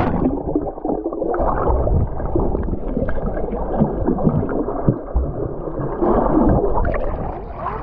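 Underwater sound picked up by a submerged GoPro: dull, muffled water movement and gurgling bubbles around a swimmer, right after the splash of going under.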